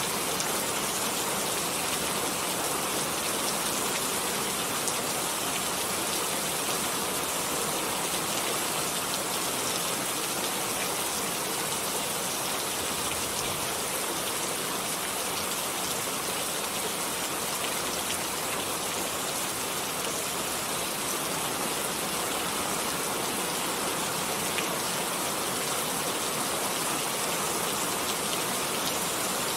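Steady rain falling, an even hiss of many drops pattering on surfaces, unchanging throughout.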